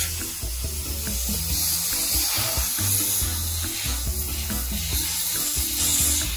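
Background music with a low bass line stepping from note to note, under a steady hiss.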